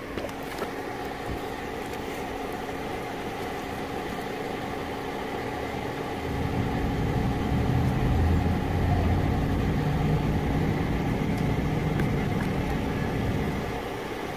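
Car engine and road noise heard from inside the cabin of a slowly moving car. A louder low engine rumble swells about six seconds in and eases off near the end.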